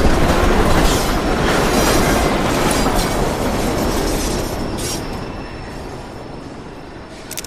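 Subway train passing, its noise slowly dying away.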